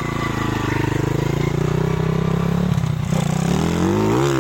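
YCF SP1 150 pit bike's single-cylinder four-stroke engine, running on a newly fitted Keihin PE28 carburettor, held at a fairly steady low speed and then revving up about three seconds in, the pitch rising and wavering.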